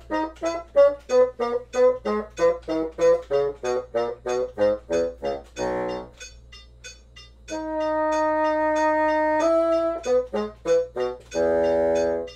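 Bassoon playing a detached eighth-note passage in time with a metronome clicking eighth notes at 96 BPM, about three clicks a second. It breaks into a few long held notes past the middle and a final held note that stops just before the end, while the metronome ticks on through the gaps.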